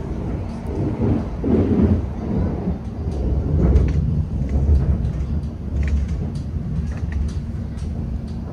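Passenger train running, heard from inside the carriage: a low, uneven rumble of wheels on the track with a few faint clicks.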